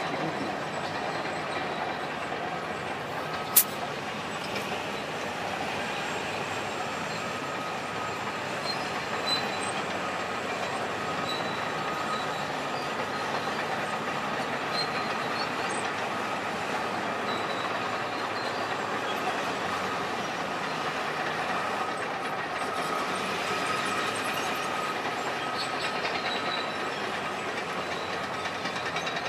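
Steady mechanical noise with a faint high whine running through it, and one sharp click about three and a half seconds in.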